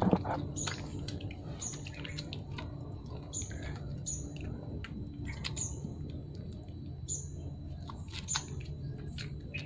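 Several puppies suckling from their mother, with soft wet clicks and smacks, while a bird gives short, high chirps about once a second in the background.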